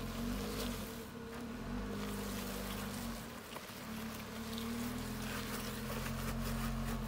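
Jeep Wrangler JL's engine running at low revs as it crawls up a rock ledge, its note rising and falling a little with the throttle.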